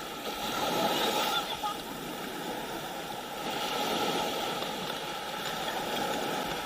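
Sea water washing and splashing, swelling and easing twice.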